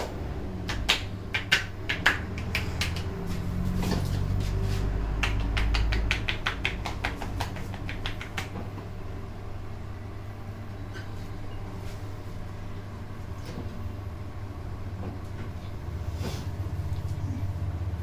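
Hands slapping and clapping on a bare back during a percussive massage: a quick run of sharp snaps in the first half, then only a few faint ones over a steady low hum.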